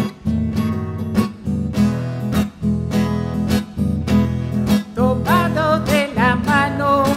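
Acoustic guitar strummed in a steady rhythm on chords in E major. About five seconds in, a voice starts singing over it.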